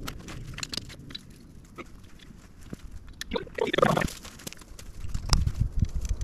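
Crackling and rustling of dry pine straw and leaves being trodden on and handled close by, with a louder rustle about four seconds in and a low rumble near the end.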